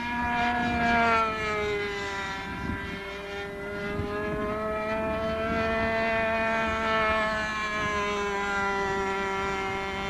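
Small YS .45 glow engine of a radio-control F-16N model with a pusher propeller, running at high revs in flight with a high, steady whine. Its pitch drops over the first couple of seconds as the plane passes, holds, then sinks a little again near the end.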